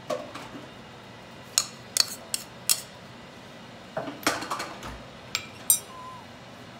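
A metal spoon clinking against a porcelain bowl, a few sharp separate clinks, then a cluster of clattering knocks about four seconds in and two more near the end as the bowl and spoon are set down.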